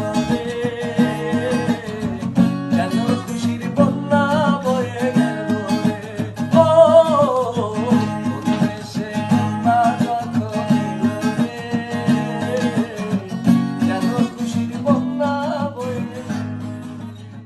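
Background music with a steady plucked-string accompaniment under a bending melody line, fading out near the end.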